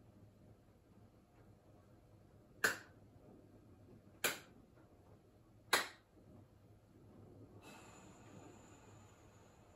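Three sharp hand claps about a second and a half apart, made as prayer claps while kneeling with palms together. A faint steady hiss follows near the end.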